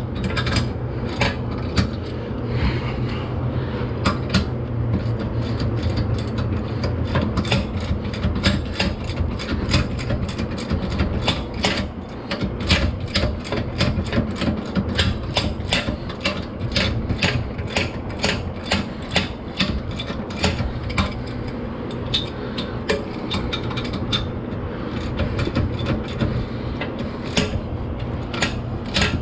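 Socket ratchet wrench clicking over and over as the Supra's differential mount bolts are wound out. A steady low hum runs underneath.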